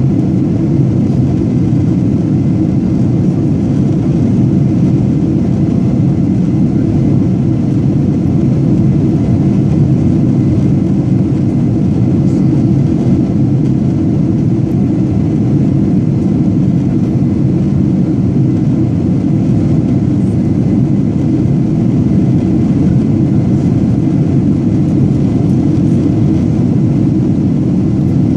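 Jet airliner in flight after takeoff: a loud, steady, low rumble of engines and airflow that does not change.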